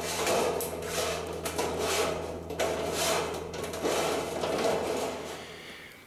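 Hand snips cutting through sheet metal, a rasping scrape with each squeeze of the handles, about one stroke a second, fading out near the end.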